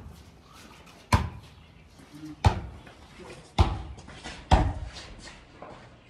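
Basketball dribbled on paved concrete: heavy, sharp bounces about a second apart, four in all, with a fifth right at the end.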